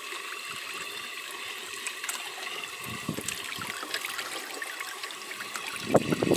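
Steady trickle of running water in an aquaponics fish tank.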